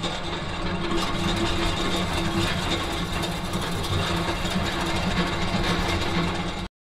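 Machine-noise sound effect: a steady mechanical drone with a low hum, cut off suddenly near the end.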